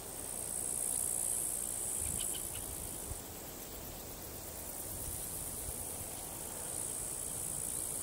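Insects trilling in a high, steady buzz: one long trill through the first three seconds and another starting about seven seconds in, over a low rumble.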